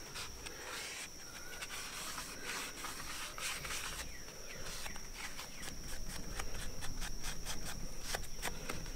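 A rag wetted with WD-40 scrubbing the bare aluminium mating surface of a supercharger in quick back-and-forth rubbing strokes, cleaning it before it is joined without a separate gasket.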